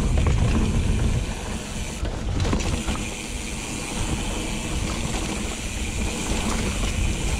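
Steel hardtail mountain bike riding a dirt singletrack trail: tyres rumbling over the ground and wind on the microphone, louder for the first second, with a few scattered knocks and rattles.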